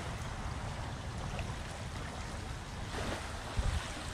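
Wind buffeting the microphone over small waves lapping at the water's edge. About three seconds in, splashing of feet wading through ankle-deep water joins in, with a heavier low wind thump just after.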